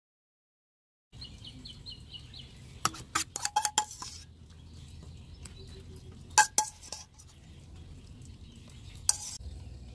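A metal spoon clinking against an enamel plate and passion-fruit shells in a few short clusters as spiced passion-fruit pulp is spooned into the halved shells. A bird chirps briefly near the start over a low hum.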